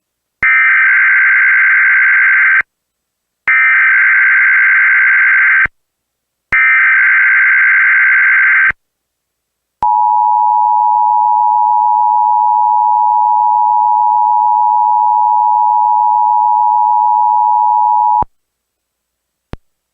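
Emergency Alert System SAME header, three bursts of warbling digital data about two seconds each, followed by the steady attention tone held about eight seconds, the signal that an alert message is about to be read.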